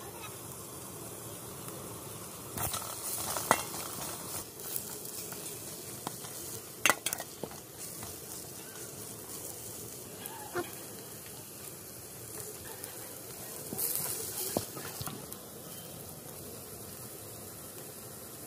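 Sea-shell meat sizzling as it fries in a metal pan, stirred with a slotted steel spatula that scrapes and clinks against the pan a few times.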